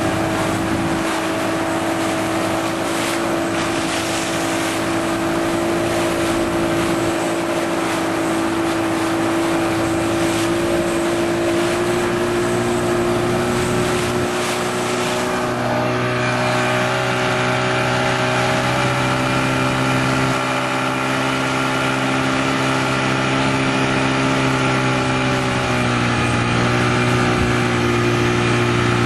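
Motorboat engine running steadily at speed, with water rushing and splashing against the hull, most splashy in the first half.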